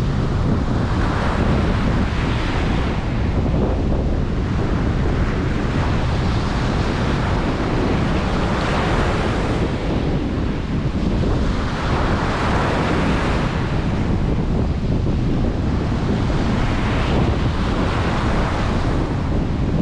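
Ocean surf breaking on a beach, the wash swelling and fading every few seconds, with wind buffeting the microphone as a steady low rumble underneath.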